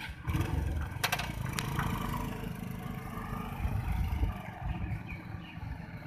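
JCB backhoe loader's diesel engine running with a steady low rumble, with a few sharp metallic clanks about a second in.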